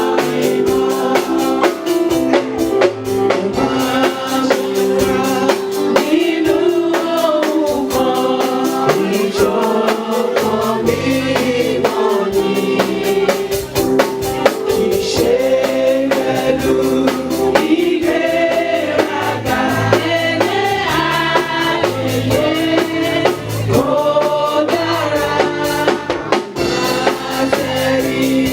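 Congregational gospel worship song: a choir and congregation singing with keyboard and drum kit accompaniment.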